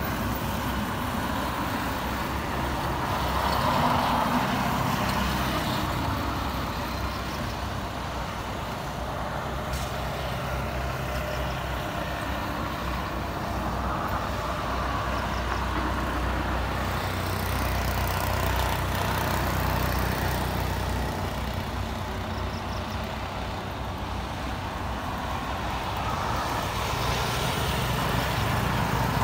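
Jet engines of a landing Boeing 787 Dreamliner, heard from a distance as a steady rumble and rush that swells twice, about four seconds in and again near twenty seconds, as the aircraft touches down and slows on the runway.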